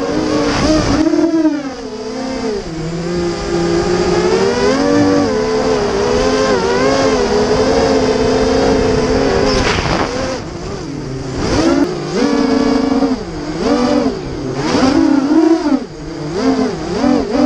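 FPV quadcopter's brushless motors and propellers whining, the pitch rising and falling with the throttle. The pitch holds fairly steady at first, then swings down and up quickly over and over in the second half.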